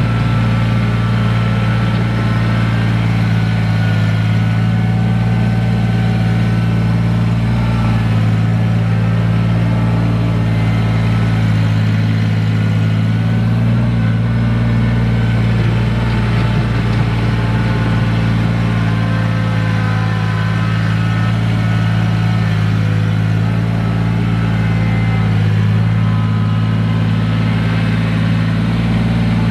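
Kubota BX23S compact tractor's three-cylinder diesel engine running at a steady pace, a constant low drone.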